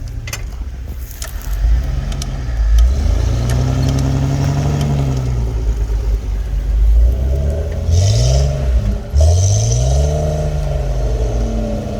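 Jeep engine revving up and down in repeated surges as it drives an off-road trail, the pitch climbing and falling several times and dropping off sharply about nine seconds in before rising again. A couple of short knocks sound about a second in.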